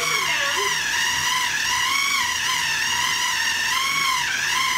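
KitchenAid 9-cup food processor motor running on high speed, kneading a ball of yeast dough: a steady high whine whose pitch wavers as the dough ball loads the blade, dipping lower near the end.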